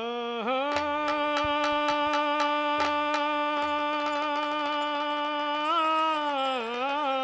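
A man's voice holding one long sung note through a microphone, sliding up into it at the start and wavering and dipping near the end: the opening alaap of a Bhojpuri devotional song.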